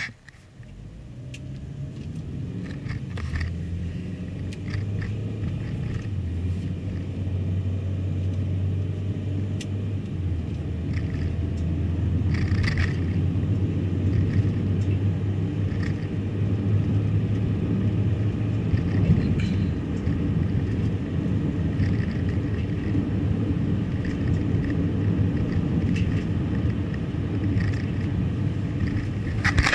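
A car driving, heard as a steady low rumble of road and engine noise that builds over the first several seconds as the car gathers speed.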